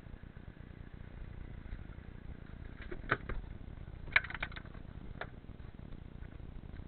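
Sharp knocks and a short rattling clatter of gear being handled aboard a small inflatable boat, one pair of knocks about three seconds in and a louder cluster about a second later, over a steady low rumble.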